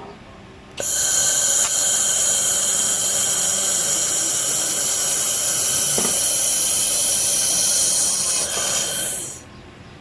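Handheld fiber laser welding head at work, its gas flow giving a loud, steady hiss with a few high whistling tones. It starts suddenly about a second in and stops shortly before the end.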